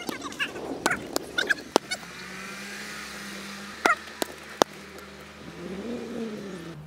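A football being kicked several times in a passing drill, giving sharp thumps; the loudest come about four and four and a half seconds in.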